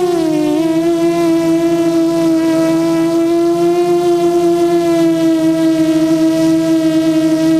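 Brushless motors and propellers of a small electric quadcopter, recorded onboard: a steady whine whose pitch dips briefly just after the start, then holds level.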